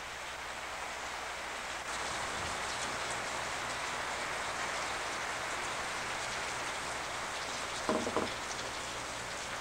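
Steady hissing noise that grows a little louder about two seconds in, with a brief pitched sound about eight seconds in.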